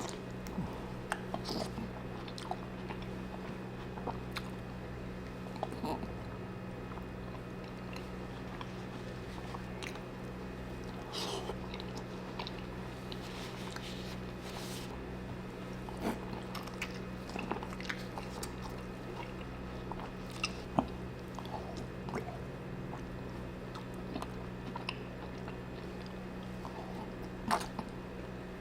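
Close-miked eating of a seafood boil: chewing, biting and wet mouth smacks with scattered sharp clicks and taps, over a steady low electrical hum.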